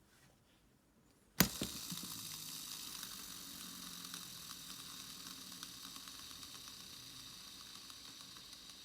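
Abu Garcia Ambassadeur 5500C baitcasting reel's spool set spinning about a second and a half in with a sharp start, then a steady whir with fine rapid ticking that slowly fades as the spool coasts down.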